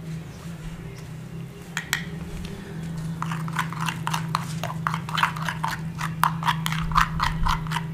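Plastic spoon stirring a thick mayonnaise sauce in a terracotta bowl, clicking and scraping against the clay several times a second from about three seconds in. A steady low hum runs underneath.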